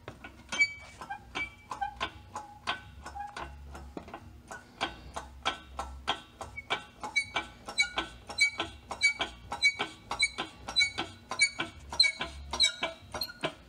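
Foot-pumped hydraulic shop press being worked stroke after stroke, each pump stroke a sharp click with a brief metallic ring, speeding up to about three a second from about five seconds in. The press is loading the shaft to force a worn golf-cart axle bearing off.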